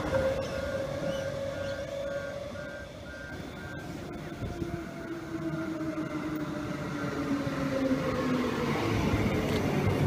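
Queensland Rail electric multiple unit pulling into the platform, its traction motors whining with a pitch that falls slowly as the train slows. A regular beeping, about two beeps a second, runs alongside for the first four seconds or so and then stops.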